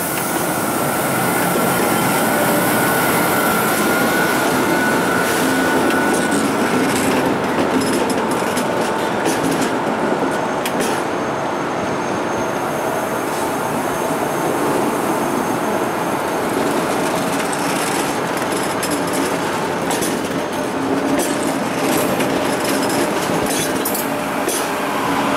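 A train running past on the track: a steady loud rolling of wheels on rail, with a thin high tone during the first several seconds and a run of clicks over the rail joints in the second half.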